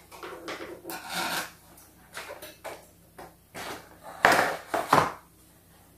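Cardboard toy packaging being handled and worked open, with short scraping and rubbing sounds, then scissors cutting at it, with two louder sharp sounds about four and five seconds in.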